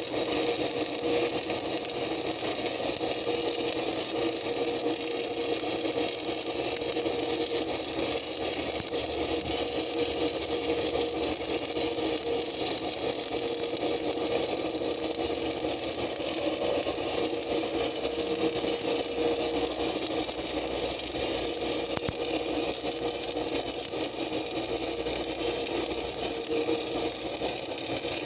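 An engine running steadily at idle, a constant hum with an even hiss over it.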